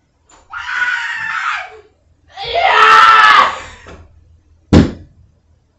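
A person screaming twice, each scream lasting over a second, the second louder, then a single sharp loud thump about three-quarters of the way through.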